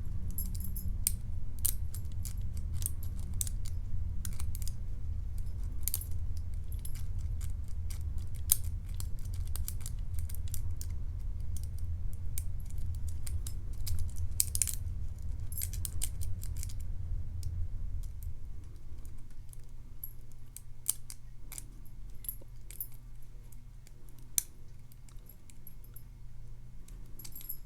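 Lock pick and tension wrench working the pin stack of a Matlock 2508 padlock: irregular small metallic clicks and scrapes as pins are probed and set. A low steady hum lies underneath and drops away about two-thirds of the way through.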